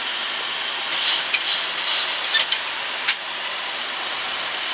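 Steady rushing cockpit noise of a Boeing 737-800 in flight on approach. About a second in comes a quick run of short clicks and rustles from hands at the glareshield controls, ending in a single sharp click near three seconds.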